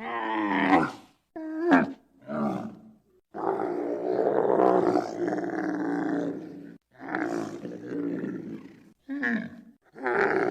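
Giraffe calls: a string of about seven separate pitched calls, most under a second, one about three seconds long, with short silent gaps between them.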